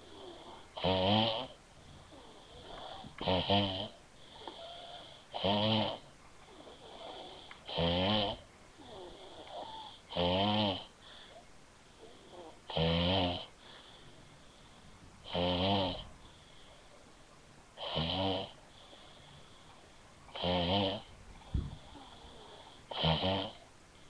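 A woman snoring in her sleep: about ten pitched, rattling snores, one every two and a half seconds, with a fainter, higher breath between them.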